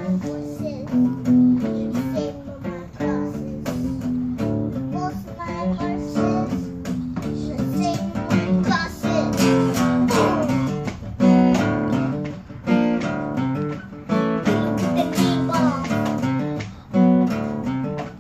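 Acoustic guitar strummed in a steady rhythm, an instrumental passage with chords struck on regular accented strokes.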